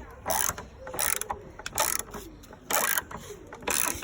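Ratchet clicking in short repeated strokes, about five in four seconds, as bolts are tightened.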